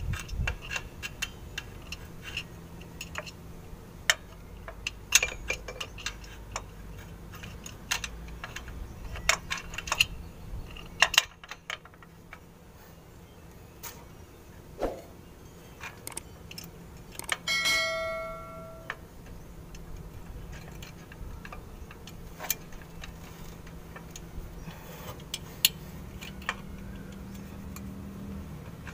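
Scattered light metallic clicks and clinks as a parking brake shoe, its return springs and hook are fitted by hand onto the brake backing plate, with one short ringing clink of metal about two-thirds of the way through.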